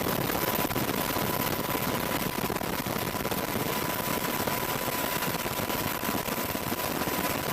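Military helicopters running, a dense rapid chop of rotor blades over turbine noise, with a thin steady high whine throughout.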